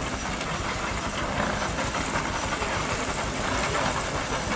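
Steady mechanical clatter with a hiss from farm machinery running.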